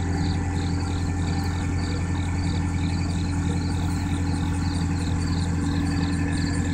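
Skid steer engine running steadily, with a high-pitched squeal pulsing about twice a second over it.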